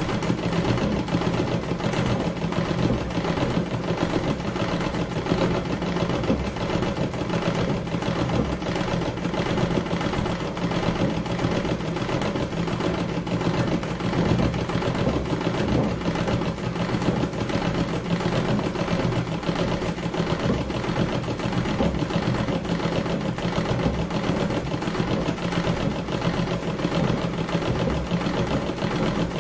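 Treadle sewing machine running steadily through free-motion embroidery: the needle stitches in a fast, even rhythm through fabric held in a hoop.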